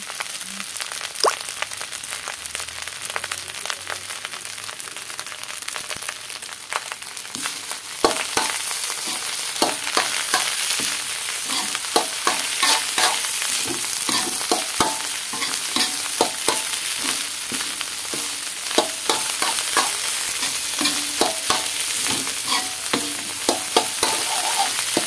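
Egg fried rice sizzling in a wok while a metal wok spoon stirs and scrapes it. From about eight seconds in, the sizzle gets louder and frequent clinks and scrapes of the spoon against the pan set in.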